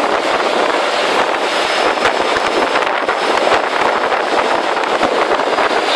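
Bangkok water bus under way: a steady, loud rush of its engine and the water, with wind on the microphone.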